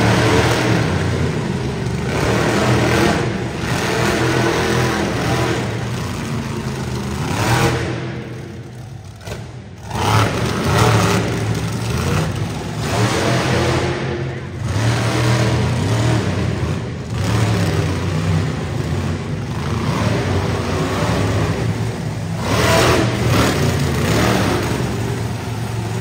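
Monster truck engine revving hard in repeated throttle surges that rise and fall. About eight seconds in it backs off to a brief lull, then opens up loudly again about two seconds later.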